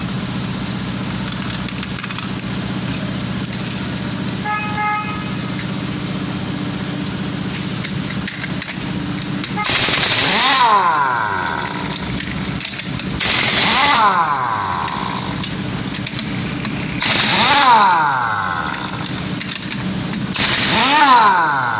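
Pneumatic impact wrench on truck wheel nuts: four bursts of about a second and a half each, a few seconds apart, each ending in a falling whine as the tool spins down. A steady low hum runs underneath.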